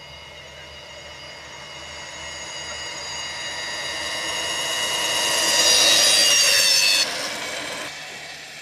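12 V car starter motor over-volted to 24 V, driving an electric bike: a high-pitched motor whine that grows steadily louder as the bike comes closer, dips a little in pitch at its loudest, then drops away suddenly near the end.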